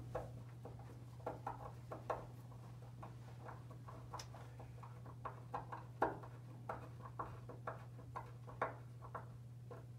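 Hand screwdriver driving a solid brass slotted screw into a pre-drilled hole through a twist doorbell's plate: small irregular clicks and scrapes of the blade in the slot and the screw turning into the wood.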